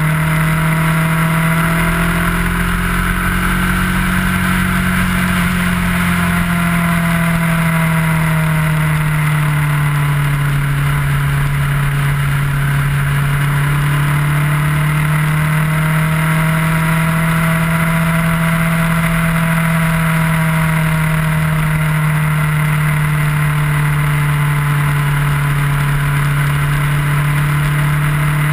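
Kawasaki ER-6f's 649 cc parallel-twin engine running steadily at cruising speed, its pitch rising slightly a few seconds in, sagging a little near the middle, then holding level, over a constant rush of wind and road noise.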